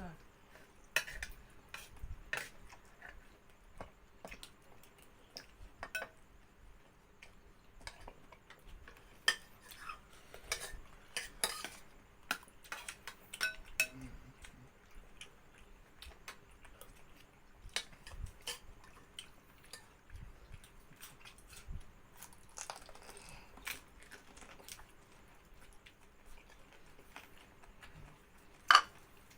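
Cutlery clinking and scraping against bowls and plates during a meal: irregular light taps throughout, with one loud clink near the end.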